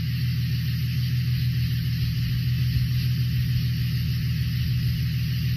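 A vehicle engine idling steadily with a low rumble, under an even hiss.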